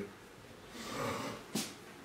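A man's breath through the nose, under a second long, followed by a short sharp click.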